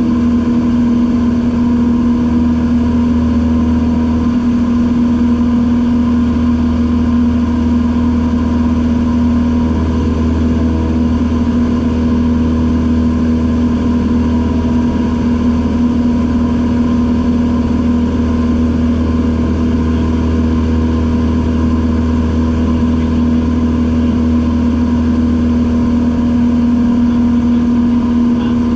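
Single-engine propeller plane's piston engine and propeller running steadily at cruise, heard from inside the cockpit as a loud, even hum that holds one pitch throughout.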